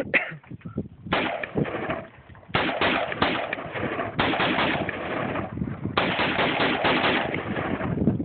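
AR-15 rifle firing long strings of rapid shots, several a second, beginning about a second in with only brief pauses between strings.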